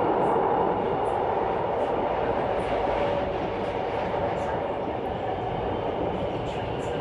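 Steady rumbling noise of a moving vehicle in motion, easing off slightly in level over the seconds.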